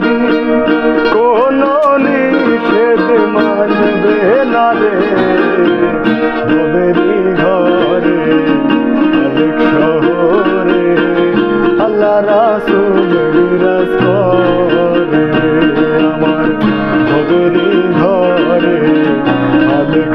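Acoustic guitar, ukulele and keyboard playing a Bengali folk song at a steady loudness, with a wavering melody line over the strummed chords.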